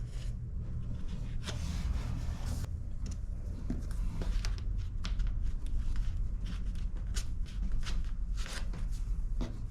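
Hand work applying a bead of white silicone caulk into a gap along the trim: scattered small clicks and rubbing sounds of the caulk being dispensed and smoothed, over a steady low hum.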